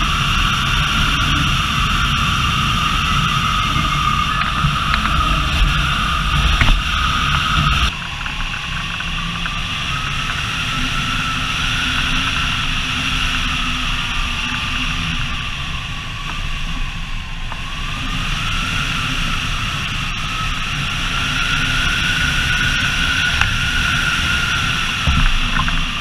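Wind rushing past a hang glider under aerotow, mixed with the steady drone of the tow plane's engine. About eight seconds in the sound shifts, and the engine tone then rises and falls slowly as the glider surges in airspeed and the wind noise swells with each surge.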